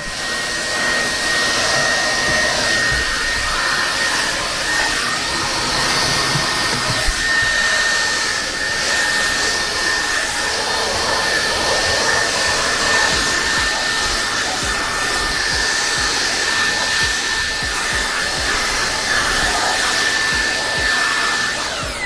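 Xiaomi G10 cordless handheld vacuum cleaner running at its highest suction setting: a steady rush of air with a constant high motor whine.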